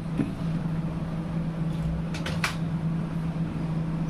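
A steady low hum, with a few sharp plastic clicks a little past halfway as the refrigerator's clip-fastened inner panel is worked loose.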